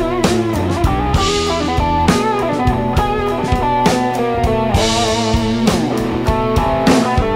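Band music with no singing: a Stratocaster-style electric guitar plays bending, bluesy lead lines over a steady drum kit beat.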